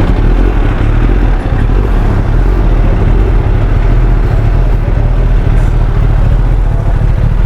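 Motorcycle running steadily while riding, a loud, even rumble with no clear changes in revs.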